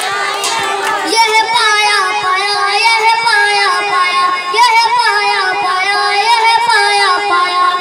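A boy singing solo into a microphone: a drawn-out melody with long held notes that waver up and down.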